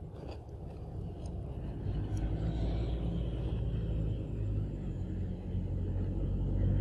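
Low, steady engine rumble that grows louder from about two seconds in, with a few faint clicks over it.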